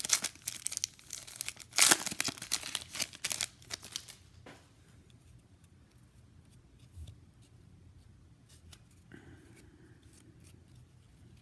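Foil wrapper of a 2017 Elite Draft Picks football card pack being torn open and crinkled: a run of loud rips and crackles that stops about four seconds in, leaving only scattered faint ticks.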